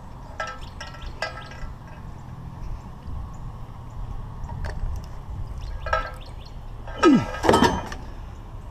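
Scrap metal and glass clinking and ringing as they are carried. About seven seconds in there is a louder clatter with a short scrape as they are set down among steel bed-frame rails in a pickup bed.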